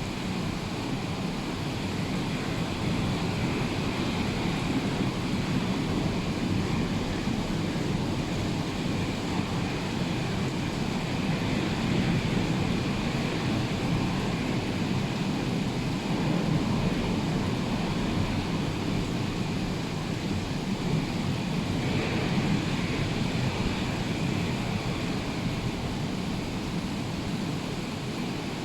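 Rough sea surf breaking continuously, a steady wash of noise from waves churned up by a hurricane.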